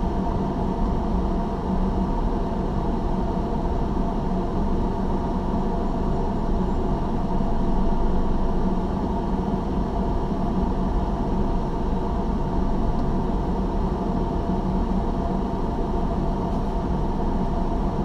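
Steady engine and road noise inside a car's cabin as it drives slowly, a constant drone with a few faint held tones.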